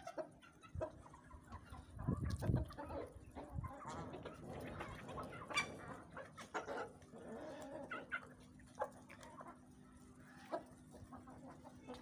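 Domestic chickens clucking in a yard, a run of short, repeated calls from several birds, busiest in the first half. A loud low rumble about two seconds in.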